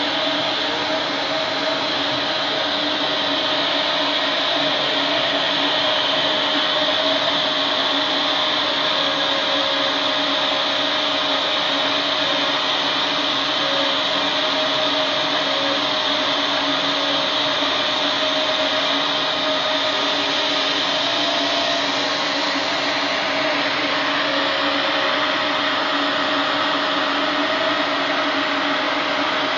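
Epilog Mini 24 35 W CO2 laser cutter running as it cuts 3 mm wood: a steady drone of moving air with a few steady hums underneath, from the machine's fans and air blowers.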